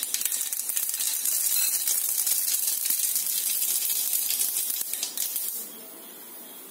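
Mustard seeds crackling and popping in hot oil with a dried red chilli, a dense patter of tiny pops over a sizzle. The crackling stops suddenly near the end.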